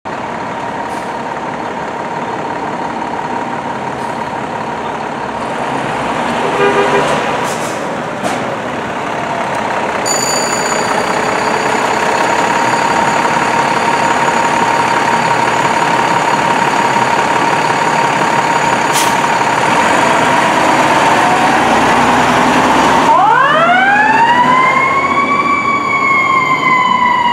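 Fire engine pulling out on a call, with a steady high tone for most of the time and a short air horn blast about seven seconds in. Near the end its Federal Signal e-Q2B electronic siren winds up in a steep rising wail that then slowly falls away.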